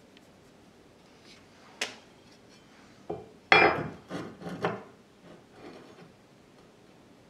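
Metal measuring tools, an aluminium ruler and a steel square, knocking and sliding against a steel bar blank on a wooden workbench as they are picked up and set in place. A sharp click just under two seconds in, a short run of loud knocks and scrapes in the middle, then faint scraping.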